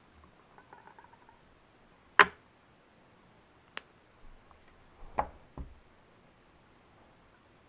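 Close-up handling sounds from thread wrapping on a bamboo fly rod guide: a faint rustle of thread, then one sharp click about two seconds in, the loudest sound, a short thin tick, and a few lighter taps near the end.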